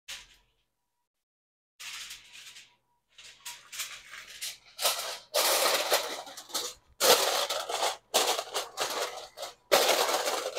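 Aluminum foil crinkling and crackling as it is pressed and crimped around the rim of a bowl, in a run of crackly bursts that get louder about halfway through.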